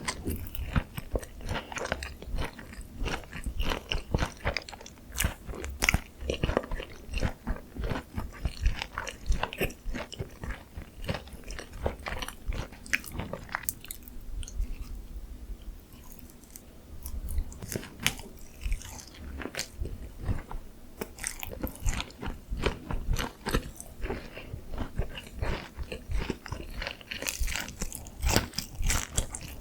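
Close-miked biting and chewing of sauce-coated Korean fried chicken (dakgangjeong), with dense, irregular crunching of the crisp batter and a brief quieter stretch of chewing about halfway through.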